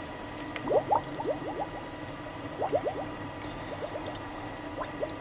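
Coolant gurgling in a 2001 GMC truck's plastic coolant reservoir, heard as four bunches of quick rising glugs. This is trapped air bubbling out of the cooling system as it is refilled after a heater core flush.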